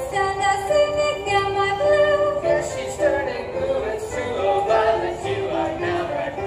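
Music from an electronic keyboard playing a melody in held notes, with voices singing along.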